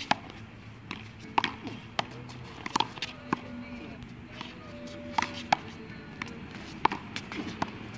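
Handball rally: a rubber handball smacked by bare hands and hitting the concrete wall and court floor, about ten sharp irregular smacks, some in quick pairs.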